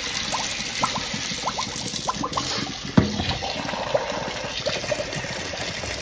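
Rinse water running from a siphon tube into a stainless steel kitchen sink, with many small plinking drips, as the water is drained off soaking wild bird seed. A single knock sounds about three seconds in.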